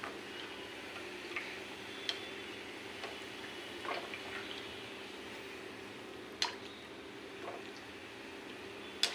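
Raj kachori deep-frying in hot oil in a kadhai: a steady frying hiss, with a few sharp clicks as a slotted steel spatula works oil over the puffed kachori.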